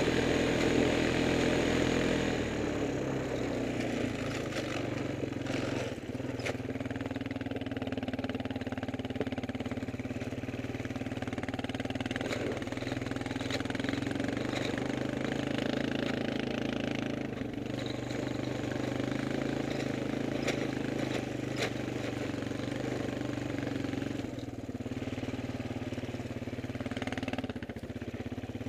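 Small engine of an off-road vehicle running steadily at an even pitch as it drives a rough dirt trail. It eases off slightly about two seconds in, and there are a few short knocks and rattles.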